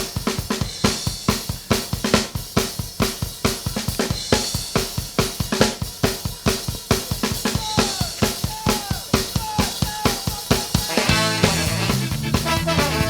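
Soundtrack music: a drum kit playing a fast, steady kick-and-snare beat on its own, with bass and the rest of the band coming in about eleven seconds in.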